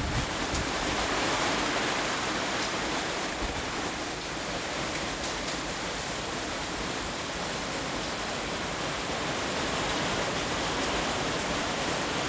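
Heavy rain pouring steadily, a dense even hiss, with gusty wind through the trees.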